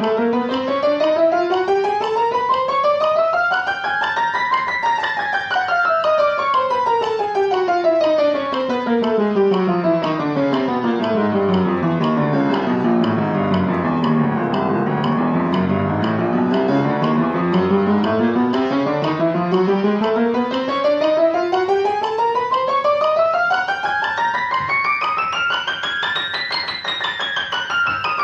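Kawai piano playing fast, evenly running scales across the keyboard. The run climbs to the top about four seconds in, falls back to the low end around fifteen seconds, then climbs to the top again near the end.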